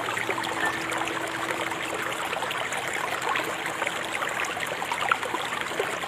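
River water flowing steadily, a continuous rush dotted with many small trickling splashes.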